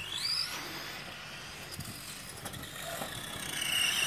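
Two radio-controlled cars driving on a concrete driveway, their motors giving a high whine that rises in pitch as they speed up. The whine is brief at the start, fades, then builds and grows louder near the end.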